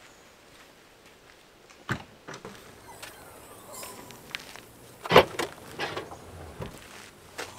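A few sharp knocks and clatters, the loudest a little past five seconds in, followed by several smaller ones.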